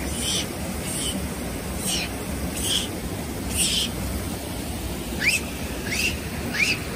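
A series of short, high-pitched animal calls, one every second or less. The first several are hoarse, and the last three are quick rising chirps. A steady rush of river water runs underneath.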